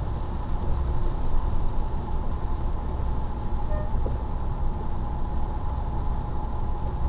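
Steady low engine and road rumble heard from inside a vehicle's cab while driving on wet asphalt in light rain, with a steady high hum running alongside.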